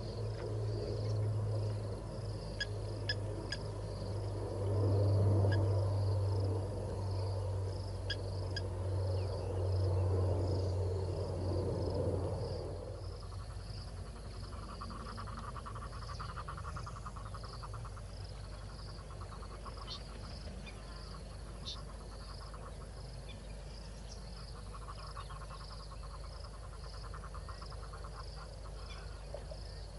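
Outdoor natural ambience: a high insect chirp repeats about twice a second throughout, and a rapid pulsing trill comes and goes in the second half. A low hum runs under the first twelve seconds or so and then fades out.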